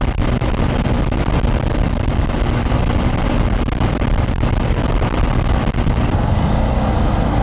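Motorcycle engine running steadily at expressway cruising speed, around 90 km/h, under heavy wind rush on the microphone. About six seconds in the sound changes abruptly and the high hiss drops away.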